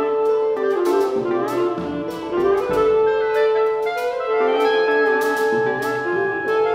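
Live mixed chamber ensemble of flute, clarinet, alto saxophone, bassoon, pedal steel guitar, banjo and drum kit playing a waltz: long held wind notes over a stream of short, sharp plucked and struck notes.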